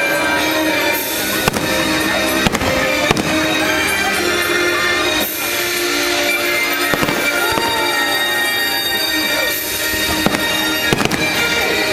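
Fireworks bursting over the show's music from loudspeakers, with a few sharp bangs standing out.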